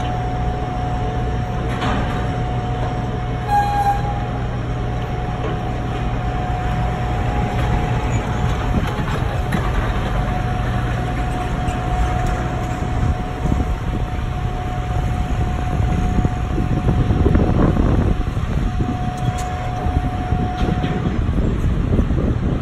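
Forklift engine running as a forklift works around the ship's stern ramp and drives past close by, over a steady low machinery hum. A held high whine sounds throughout and cuts off near the end; the engine noise is loudest a little past the middle.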